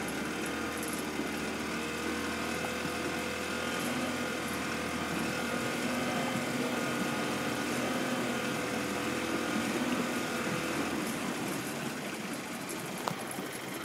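A boat's engine running steadily with a chugging hum, which eases off about eleven seconds in.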